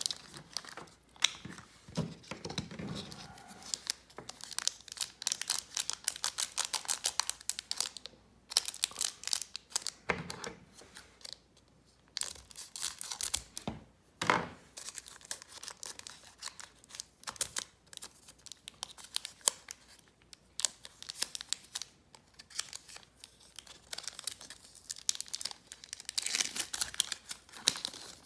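Foil Pokémon booster pack wrapper crinkling and tearing as it is opened, with the cards being handled, in crackling bouts with short pauses between.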